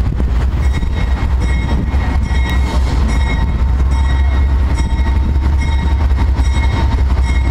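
Diesel-hauled passenger train approaching along the track: a steady low engine rumble, with a high ringing tone repeating about once a second.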